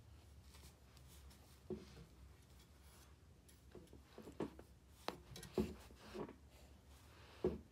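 A small Shih Tzu-Pomeranian puppy scuffling and pawing on carpet at a person's bare foot: faint rubbing with a handful of short soft thumps, the strongest a little past halfway and near the end.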